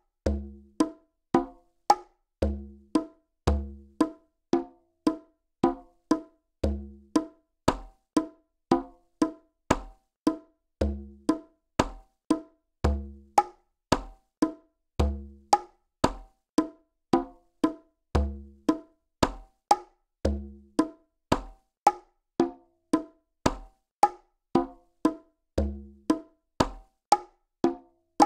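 Background music: a steady, evenly paced percussion beat of sharp, clicky strikes, about two to three a second, with short low bass notes under some of them.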